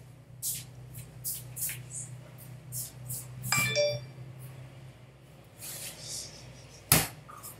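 Rummaging by hand through objects: a run of light clicks and rustles, a brief ringing clink about three and a half seconds in, and a sharp knock near the end.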